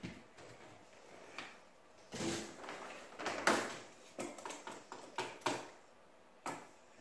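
A scattered series of light knocks and clatters, about eight in all, the loudest about three and a half seconds in: tools being handled on a plywood subfloor as a tape measure is set down and a pneumatic brad nailer and its air hose are moved into place against hardwood floorboards.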